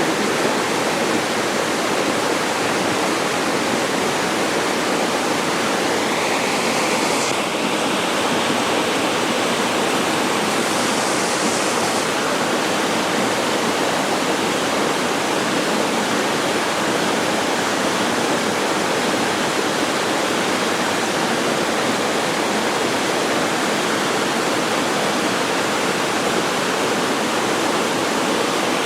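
Chilyeon Falls, a waterfall in Deogyusan's Chilyeon Valley, pouring steadily: a continuous, even rush of falling water.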